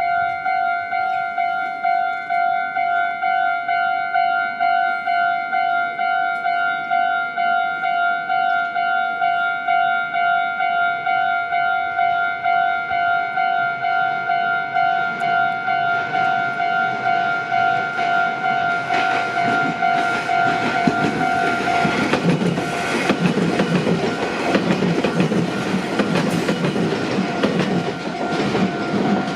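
Japanese electronic level-crossing alarm ringing a steady, quickly repeating ding. From about two-thirds of the way in, a Meitetsu Inuyama Line train passes, its wheels clattering over the rail joints and drowning out the bell. The bell comes through again as the train clears.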